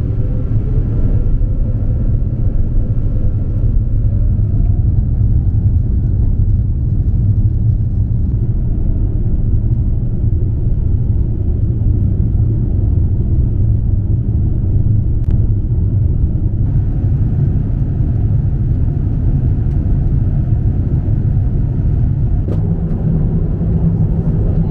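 Steady, deep rumble inside the cabin of an Airbus A350-900 airliner in motion, from its engines and the airflow. The upper part of the sound changes abruptly a few times.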